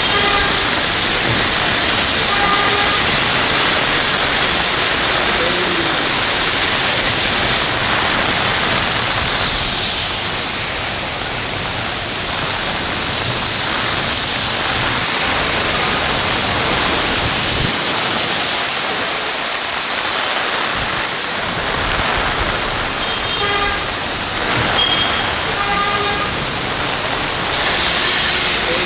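Heavy rain pouring down on a busy road: a steady hiss of rain and tyres on the wet surface, with car horns honking briefly near the start and a few times about three-quarters of the way through.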